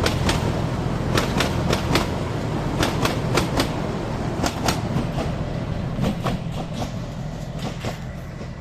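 Kangra Valley Railway narrow-gauge train running on the track: a steady rumble with wheels clicking over rail joints in quick clusters. The sound slowly fades toward the end.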